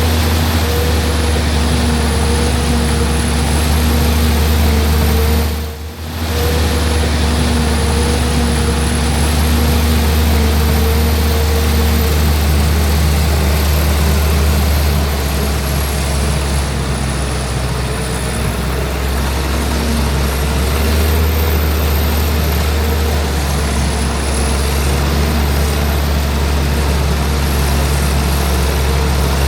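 Heavy diesel machinery, a forage harvester and tractors, running steadily at work, with a faint high whine that slowly rises and falls. The sound dips briefly about six seconds in.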